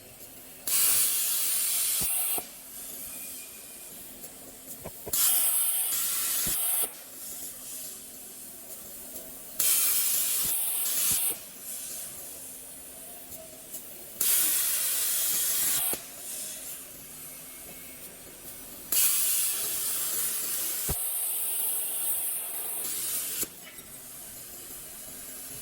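Plasma cutting torch hissing in five loud bursts, the first four under two seconds each and the last one longer, with a quieter hiss of air between them.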